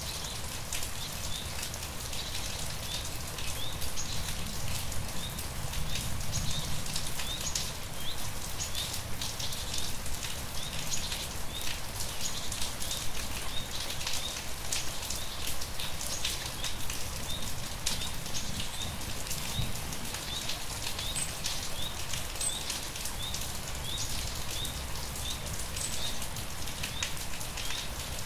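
Steady rain falling, with many separate drops heard striking, over a low rumble. A faint, short, high chirp repeats at a steady pace throughout.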